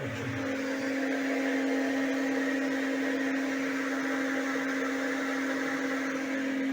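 Water pump running with a steady hum while water is pumped out of the well.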